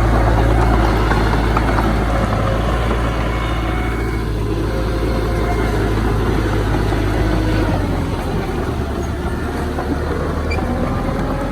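Heavy earthmoving machine's diesel engine running steadily, its low note dropping slightly about eight seconds in.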